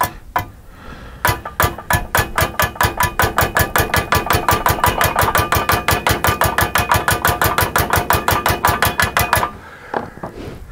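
Small hammer rapidly striking a steel exhaust pipe joint, about seven blows a second with a metallic ring, to pound the metal down flush before welding. A few separate knocks come first, and the hammering stops shortly before the end.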